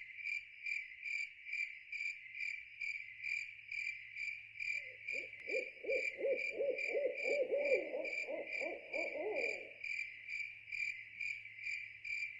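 Evenly pulsing high-pitched chirping, about three chirps a second, like an outdoor animal chorus. About five seconds in, a run of quick, lower hooting notes rises and falls for about five seconds.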